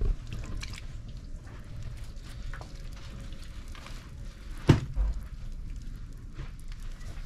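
Wet hands working soft clay on a turning potter's wheel: a soft, wet, crackly squelching over a low rumble. One sharp knock a little past halfway is the loudest sound.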